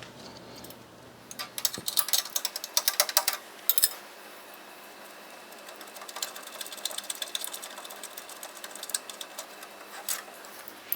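Rapid runs of light mechanical clicks and rattles, loudest from about one and a half to four seconds in, then fainter, sparser clicking.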